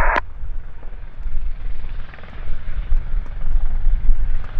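Eurocopter EC120B Colibri helicopter running, its rotor and turbine heard as a loud low rumble that rises and falls in loudness. A radio transmission ends with a click just after the start.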